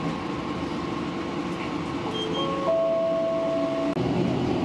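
City bus running, its engine and road noise heard from inside the cabin. A few steady tones come in one after another about two seconds in and stop together about a second and a half later.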